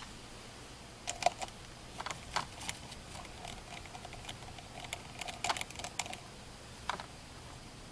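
Scattered light clicks and taps of a hand tool on the chainsaw's 8 mm carburetor mounting nuts, coming in small irregular clusters.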